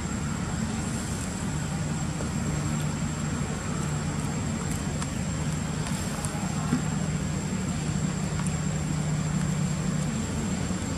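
Steady low hum of distant motor traffic, with a thin, constant high-pitched whine above it and a few faint clicks.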